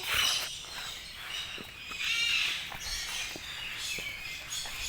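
Cockatoos calling, with one harsh squawk about two seconds in and scattered shorter chirps around it.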